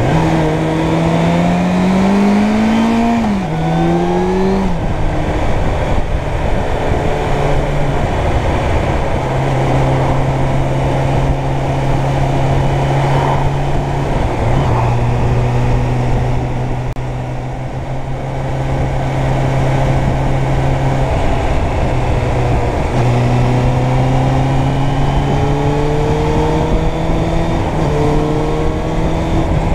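Suzuki Bandit 600's inline-four engine heard from the saddle: rising revs with two quick upshifts in the first five seconds, then steady cruising revs, then pulling up through the gears again near the end, with a steady wind rush over it.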